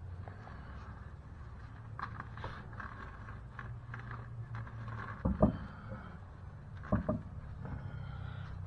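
A steady low hum with two short clusters of knocks about five and seven seconds in, the sound of a car wheel and tools being handled during wheel refitting.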